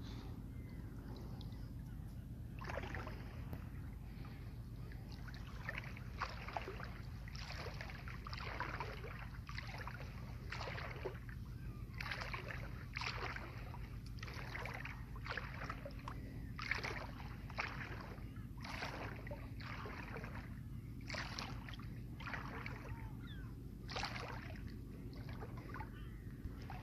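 Water sloshing and splashing in short, irregular bursts, about one or two a second, over a steady low hum.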